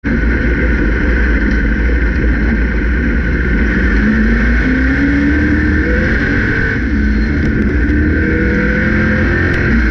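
Grand National stock car's engine heard from inside the cockpit, running loud and steady on track. The revs climb slowly from about four seconds in, dip briefly near seven seconds, and climb again.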